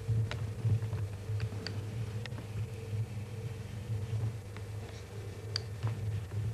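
Steady low hum with a higher faint steady tone above it, and a few scattered faint clicks.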